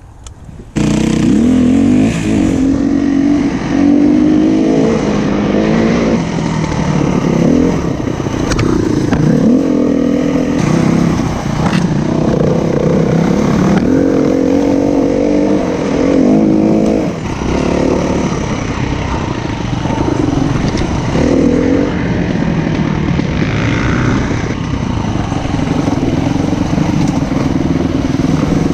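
SWM 300RS enduro motorcycle's single-cylinder engine being ridden off-road, revving up and dropping back over and over as the throttle is worked. It cuts in abruptly about a second in.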